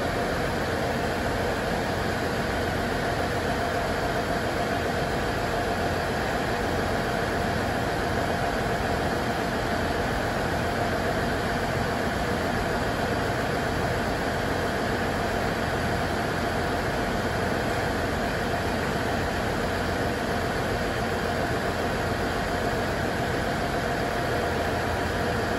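Diesel railcar idling, a steady, even drone.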